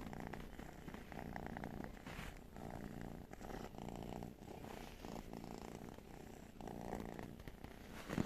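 Domestic cat purring steadily in even cycles, the hum breaking briefly between breaths in and out: a contented, relaxed cat.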